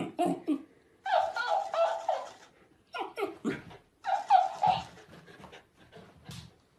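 A dog barking and grumbling in short calls at a talking hamster toy, which plays the sounds back in a higher, squeakier voice: two such exchanges, with the toy's replies the longer and higher of the calls.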